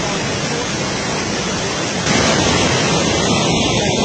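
Rushing floodwater of a swollen, muddy river: a steady noise that grows a little louder about two seconds in.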